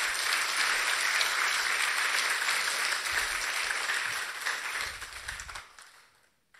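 Audience applauding, a steady dense clapping that fades out near the end.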